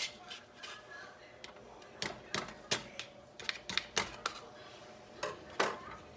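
Irregular sharp clicks and taps as a jar of Knorr dried chicken bouillon is opened and handled, its lid and container knocking and clicking, with a cluster of quick taps about two to four seconds in.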